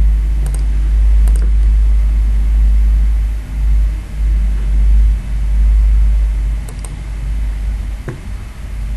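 A few light computer mouse clicks, two near the start and more a little before the end, over a loud low rumble that swells and dips.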